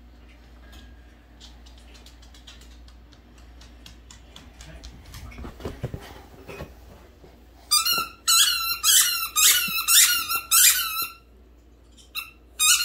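Squeaky tennis ball being chomped by a dog, giving a quick rhythmic run of high squeaks, about three a second. The squeaks begin about eight seconds in, stop for a second, and start again near the end. Before them there are only faint ticks and a few soft thumps.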